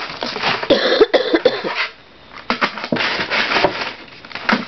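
A young woman's voice making short, wordless vocal noises in a put-on character voice, with a brief pause about two seconds in.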